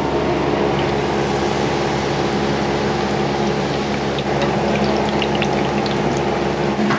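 Steady restaurant-kitchen noise: a machine hum under a rushing, water-like hiss, with a few light clinks about four to six seconds in.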